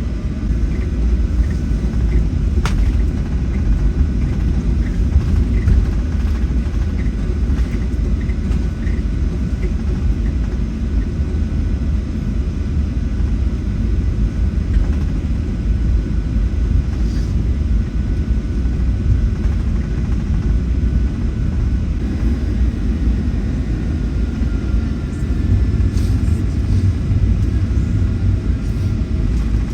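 Steady low rumble of a Boeing 757-300 cabin while the airliner taxis after landing, engines at idle, with faint steady whines above it.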